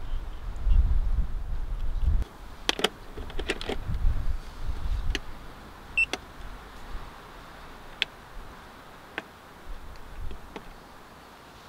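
Wind buffeting the microphone with a low rumble, cutting off after about two seconds, then a series of sharp clicks and knocks from a cable being plugged in and buttons pressed on a portable power station, with a short electronic beep about six seconds in.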